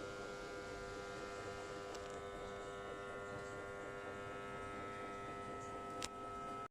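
Small electric motor running at a steady speed with an even hum of several fixed tones, and a single sharp click about six seconds in.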